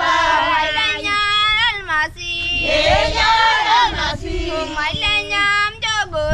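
A group of women singing together, several voices at once, their pitches sliding up and down, with brief breaks about two and five seconds in.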